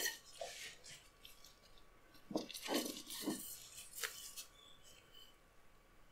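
Faint kitchen handling sounds: a ceramic plate and a frying pan being shifted on a countertop, a few light knocks and scrapes clustered in the middle and a short click a little later.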